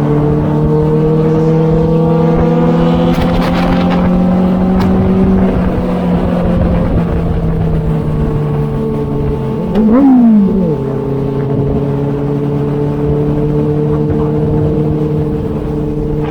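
Inline-four sport motorcycle engine running under way, heard from on board. Its pitch climbs slowly for the first five seconds, then drops and holds steady. About ten seconds in there is a quick rev up and back down, the loudest moment, after which it settles into a steady cruise.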